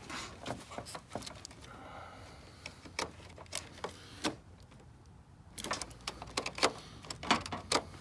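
Scattered sharp plastic clicks and rattles of a wiring connector and cables being pushed and worked into place by hand, with a quicker run of clicks over the last couple of seconds.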